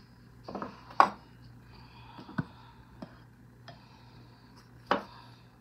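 Scattered clicks and light clanks of a metal ice cream scoop against a mixing bowl and a metal muffin tin while scooping muffin batter, the sharpest click about a second in and another near the end.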